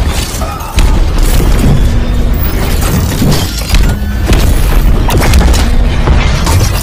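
Action-movie fight sound effects: repeated heavy booms and crashing impacts, like metal striking and pavement breaking up, over dramatic background music.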